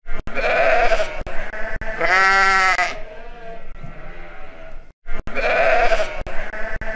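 Sheep bleating, a recorded clip that plays twice over: each pass has a rough, breathy bleat followed by a long, wavering bleat, the second pass starting about five seconds in.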